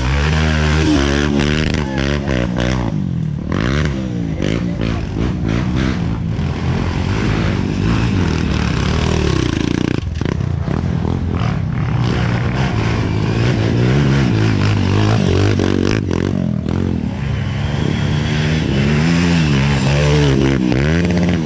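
Dirt bikes climbing a steep dirt trail one after another, each engine revving up and down loudly as it passes close by.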